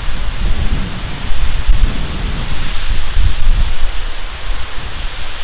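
Wind buffeting an outdoor nest camera's microphone: a steady hiss with gusty low rumbles that rise and fall.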